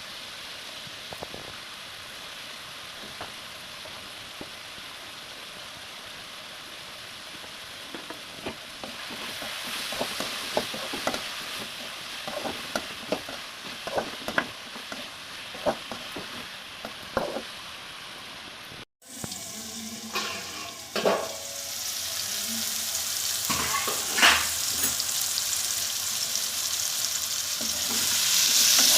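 Pumpkin sabzi sizzling in a pan, with a spoon clicking and scraping against the pan as it is stirred. The sizzling grows louder in the last few seconds.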